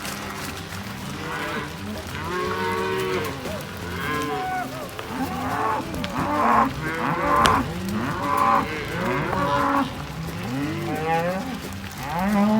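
A herd of range cattle mooing, many loud calls overlapping one after another, busiest in the middle.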